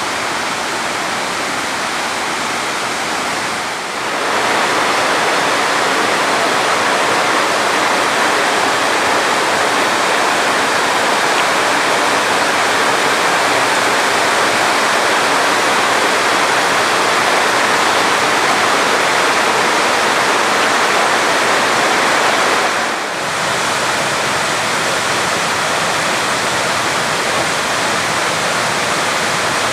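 Steady, loud rush of fast-flowing and falling water in a mountain stream, dipping briefly twice, about four seconds in and a little over twenty seconds in, then going on slightly louder.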